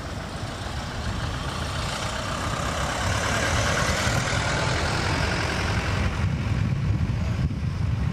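Motor vehicle passing in road traffic. The engine noise swells about three seconds in and thins out after about six seconds, over a steady low rumble.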